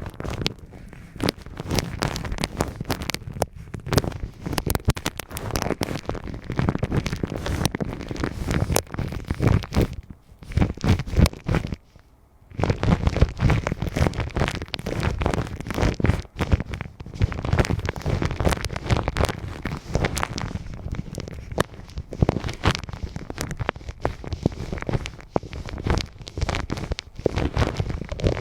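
Close-up rubbing and massaging on a microphone's ears, a dense run of crackling, rustling and rumbling right against the microphone that stops briefly about twelve seconds in.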